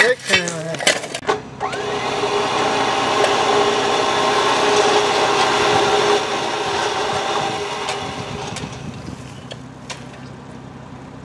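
A motor runs steadily with a hum under it as it pulls on a strap hitched to a boulder. The sound comes up about a second and a half in and fades after about six seconds.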